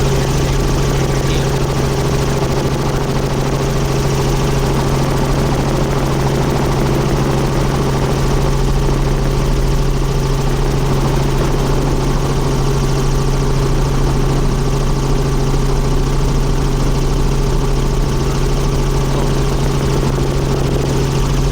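Helicopter engine and rotor running steadily, heard from aboard during the ride: a constant drone with a strong low hum that holds unchanged.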